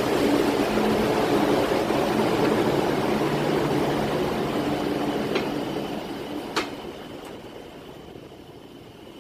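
Steady machinery noise of a cruise ship's engine room, from the large diesel engines running. It drops off markedly after about six seconds, with a sharp click just before.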